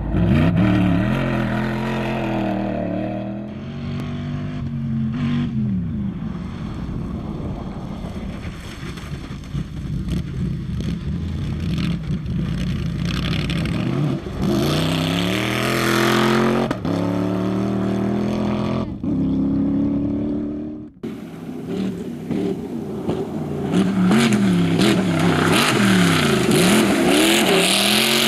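Rally car engine at full throttle, its pitch climbing and dropping again and again through gear changes and lifts, with abrupt cuts between shots. From about seven seconds before the end a loud rushing noise runs under the engine.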